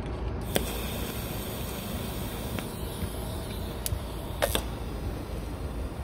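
TIG (argon) welding arc on a steel natural-gas pipe joint, struck about half a second in and then hissing steadily while the joint is tacked. A few sharp clicks and crackles cut through it, the loudest a double crack a little past the middle. A steady low rumble runs underneath.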